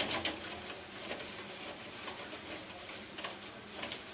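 Faint scattered ticks and light scuffs of a tissue being wiped over a microwave's coated surface, with a small cluster of ticks near the end.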